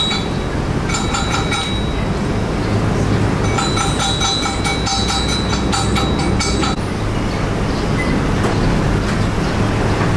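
Several CO2 wire-feed (MIG) welding arcs crackling and hissing over a steady low machine hum. The crackle stops about two-thirds of the way through, and the hum and noise carry on.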